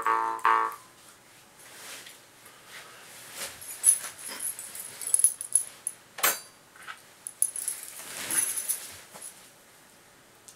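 A jaw harp's twanging drone cuts off about a second in. After it come quiet rustling and handling noises with light jingling and one sharp click.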